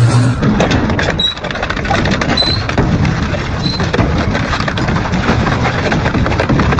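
Double-shaft industrial shredder crunching and tearing metal: a dense, irregular clatter of cracks and knocks, with a few brief high squeaks.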